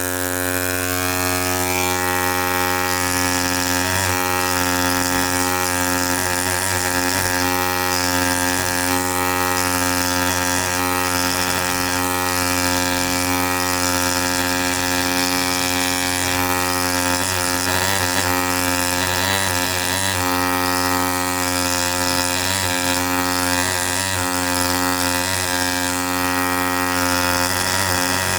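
ZOIC PalaeoTech T-Rex pneumatic air scribe running continuously: a steady, loud buzzing hum with airy hiss on top. The tone wavers briefly now and then.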